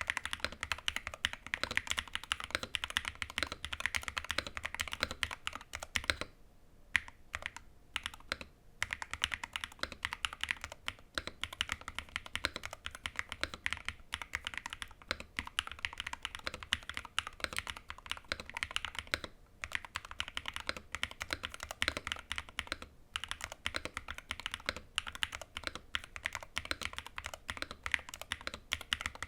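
Fast continuous typing on a 60% custom keyboard with Gateron Magnetic Jade Max Hall-effect switches, PBT keycaps and a foam-damped Tofu 60 case: rapid muted clacks with a short pause about six seconds in.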